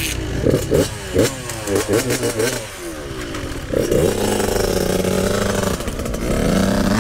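Suzuki RM85 85cc single-cylinder two-stroke dirt bike engine blipped in quick revs, then pulling away about four seconds in and holding a steady, slowly rising note as the bike rides off.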